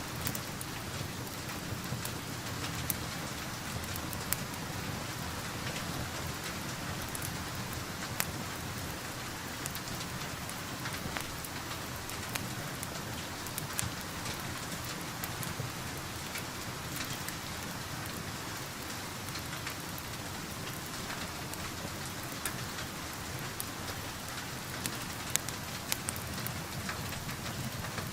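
Steady rain falling, an even hiss, with scattered sharp crackles and pops from a wood fire.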